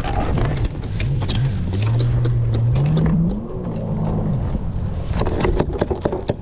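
Wind buffeting the microphone on a kayak at sea, a steady rumble. A low hum climbs in pitch about halfway through, and a quick run of clicks and knocks comes near the end.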